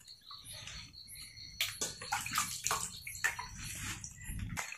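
Hands rinsing pieces of meat in water in an aluminium basin: irregular splashing and sloshing with small knocks, sparse at first and busier after about a second and a half.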